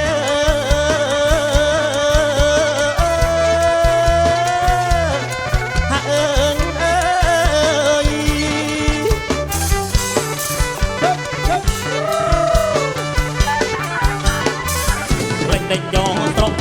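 Kantrum band playing an instrumental passage: a held, wavering melody line over a steady drum beat.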